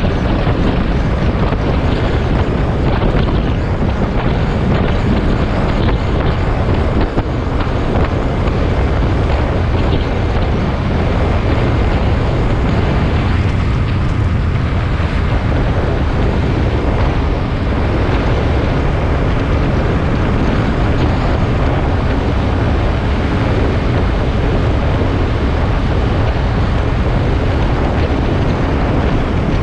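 Steady wind rumble on an action camera's microphone while riding a motorcycle at road speed, with the motorcycle's engine and tyre noise underneath.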